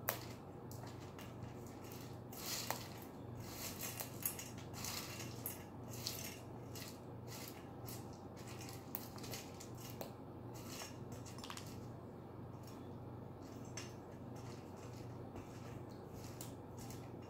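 A cockatoo biting and crunching a piece of corn held in its foot: sharp beak clicks and cracks come thick and fast for the first six seconds or so, then thin out to scattered softer clicks.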